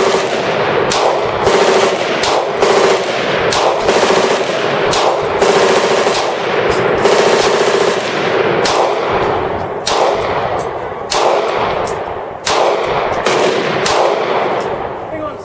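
Gunfire from many guns firing at once on a shooting range, with automatic fire included: an unbroken rattle of shots, with single louder reports standing out every second or so. It fades near the end.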